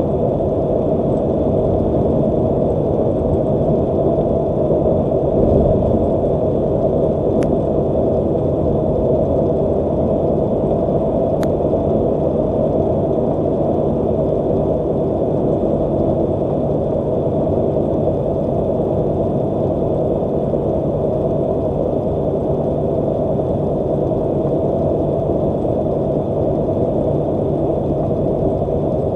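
Steady low rumble of road and engine noise inside a truck's cab at highway speed, with two faint ticks in the first half.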